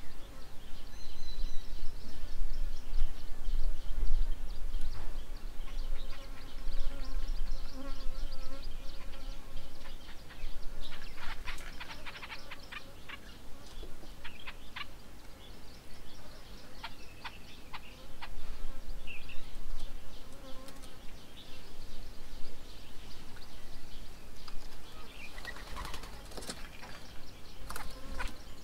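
Insects buzzing in a wavering hum, with occasional short bird chirps and clusters of clicks around the middle and near the end, over a low rumble that is stronger in the first half.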